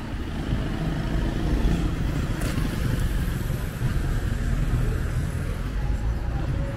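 Street traffic: a motor vehicle's engine running, a steady low rumble, with one short sharp click about two and a half seconds in.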